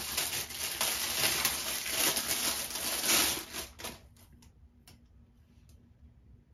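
Packaging wrapper crinkling and rustling as a hard wave brush is worked out of it, stopping about four seconds in, followed by a few light clicks.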